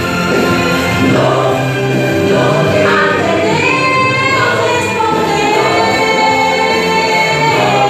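A woman singing a gospel song into a microphone, holding long notes with vibrato, over musical accompaniment.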